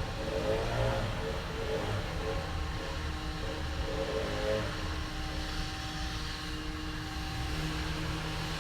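Petrol chainsaw engine running continuously. Its pitch rises and falls a few times in the first half as it is revved, then holds steadier toward the end.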